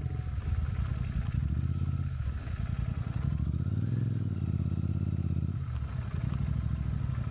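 Royal Enfield Super Meteor 650's parallel-twin engine running at low speed, heard from on the bike. The engine note dips twice and swells up and back once about four seconds in.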